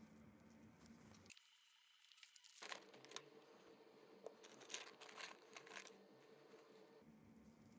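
Near silence: faint room tone, with faint scattered clicks and rustling through the middle.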